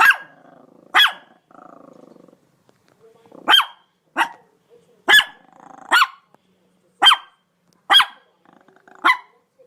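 A dog barking: about nine sharp single barks, roughly a second apart, with a low rattling growl between the second and third barks.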